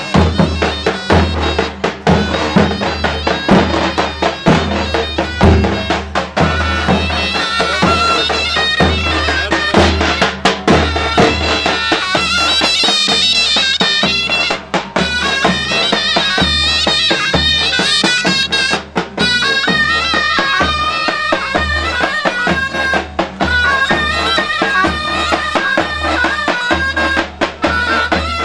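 Davul and zurna playing a Turkish folk tune: the zurna's reedy, ornamented melody over regular low davul drum beats.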